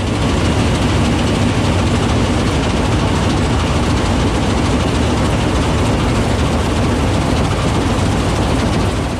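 Combine harvester running as it cuts grain: a loud, steady mechanical noise from the engine and working machinery.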